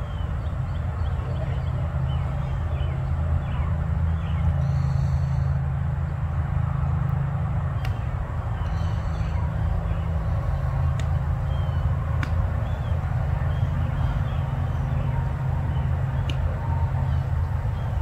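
Steady low outdoor rumble with faint high chirps and a few sharp clicks scattered through it.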